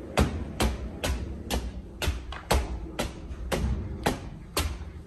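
Footsteps of a person walking up a flight of stairs, a steady series of footfalls at about two a second.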